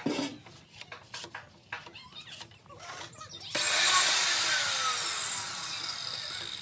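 A power tool starts abruptly about three and a half seconds in and runs loudly, then winds down with a falling pitch. Before it there are only light scrapes and taps, like a scraper working glue over a plywood board.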